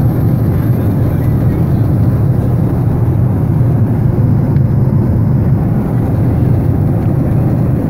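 Airliner cabin noise in flight: a steady, even rumble of engine and airflow noise heard inside the passenger cabin.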